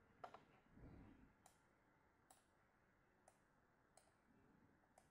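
Faint computer mouse clicks over near silence: a quick double click just after the start, then single clicks about once a second. A soft low thump comes about a second in.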